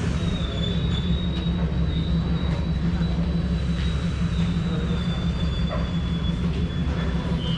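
San Martín Line commuter train running on the rails: a steady low rumble with a thin, high-pitched wheel squeal held over it.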